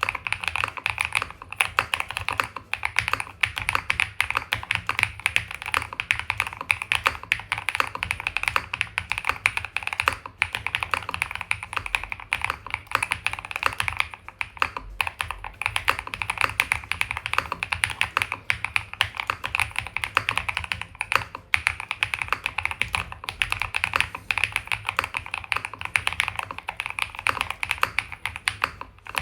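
Continuous fast typing on a stock KiiBOOM Phantom 81 v4 mechanical keyboard fitted with KiiBOOM Crystal linear switches and ABS keycaps, with a few brief pauses.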